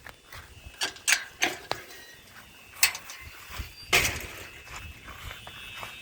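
Irregular footsteps outdoors, with a home fire alarm horn sounding faintly from the house.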